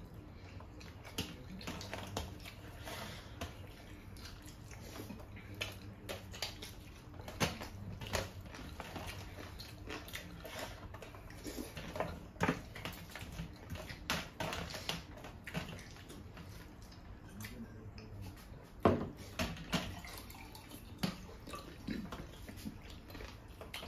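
Eating by hand: wet squelching as fingers mix rice into curry gravy and scoop it up, with chewing and lip smacking and scattered clicks and taps of fingers on steel platters, a few louder ones near the end.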